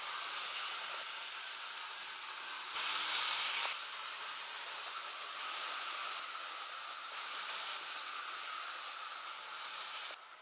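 Model railway train running on the track: a steady whirring hiss of motor and wheels, louder for about a second near three seconds in, dropping suddenly just before the end.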